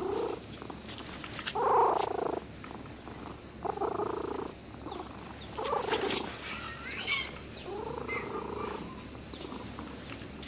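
Domestic cat purring contentedly, in pulses of about a second that come roughly every two seconds.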